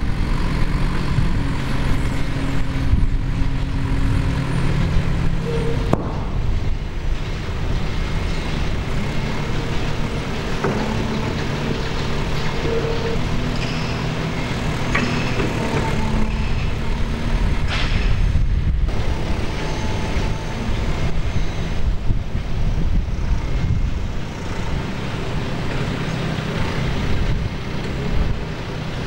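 Heavy lifting machinery's engines running steadily: a low hum with a rumble under it.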